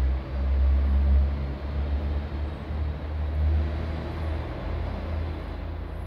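Roll-forming machine for steel-framing profiles running: a steady low motor hum and rumble that eases off slightly toward the end.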